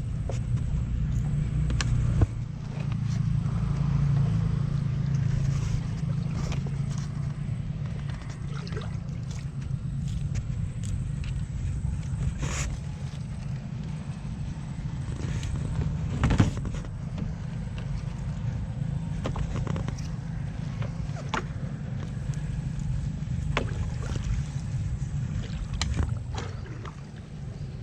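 Small boat's engine running steadily, with a few sharp knocks, the loudest about 2 seconds and 16 seconds in.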